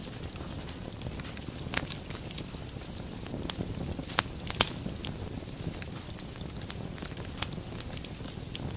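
Wood fire crackling in a fireplace: a steady low rumble of burning logs with frequent sharp pops and snaps, the loudest about two seconds in and a pair a little before the halfway point.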